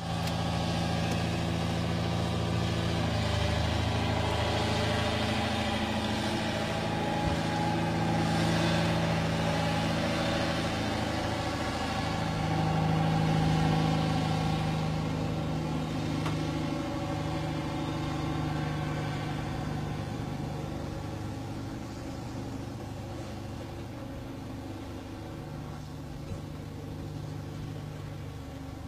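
Diesel engine of a coal-hauling road train, a prime mover pulling four dump trailers, running steadily as the rig drives past. It is loudest about halfway through and slowly fades toward the end as the trailers roll by.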